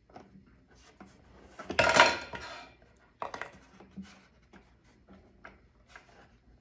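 Clinks, knocks and rattles of metal hardware and wood as the guitar body's holding cradle on a binding-router jig is adjusted by hand, with one louder clatter about two seconds in.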